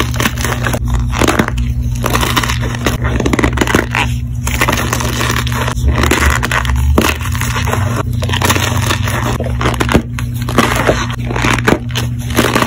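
Blocks of gym chalk covered in cornstarch are crushed and squeezed by hand. Dense, irregular crunching and crumbling with many small sharp cracks as the chalk breaks apart, and the cornstarch squeaks as it is pressed.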